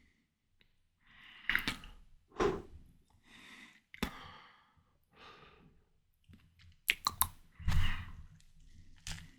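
Close-miked eating of juicy ripe watermelon: soft wet chewing and breaths, with a cluster of crisp crunching bites in the last couple of seconds.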